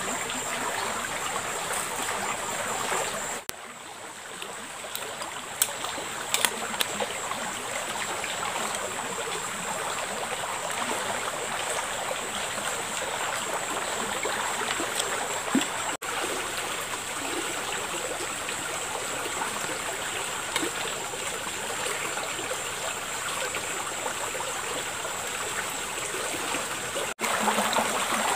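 Shallow river flowing steadily over its bed: an even, continuous rush of moving water. A thin steady high tone sits above it, and a few faint clicks come through.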